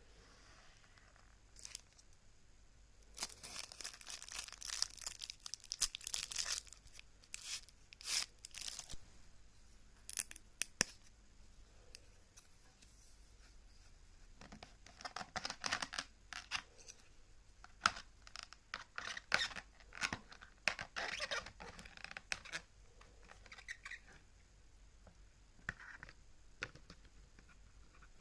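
Plastic food packaging being torn open and crinkled by hand, in several rustling bursts with sharp clicks between them.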